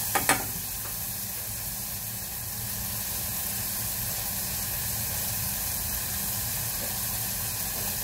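Minced pork sizzling steadily as it fries in a small pot, after two sharp knocks of the spatula against the pot just after the start.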